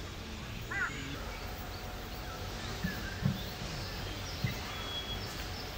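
Birdsong in wooded hills, with a single harsh call about a second in and small high chirps scattered throughout, over a steady low background noise. A few faint knocks sound in the middle.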